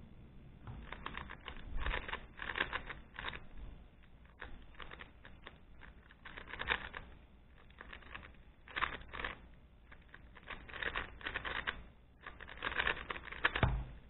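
Rubik's Speedcube, a GAN-made 3x3, being turned fast during a timed speedsolve: flurries of rapid plastic clicking and clacking from the layers, in clusters broken by short pauses. A dull thump near the end as the timer is stopped.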